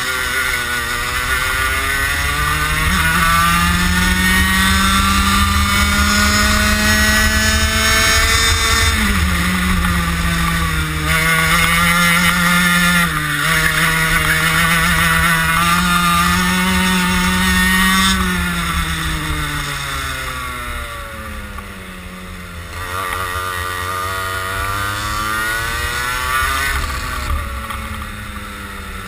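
Racing kart engine heard close up from onboard the kart at speed, its note climbing for the first several seconds, dipping briefly around nine seconds in, holding high, then falling off from about eighteen seconds in, climbing again and falling near the end as the kart accelerates down straights and slows for corners. A steady low rumble of wind on the microphone runs underneath.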